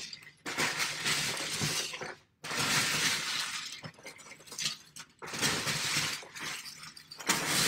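Hands rummaging through a bin of plastic Lego bricks, the bricks clattering and rattling together in four bursts of a second or two each.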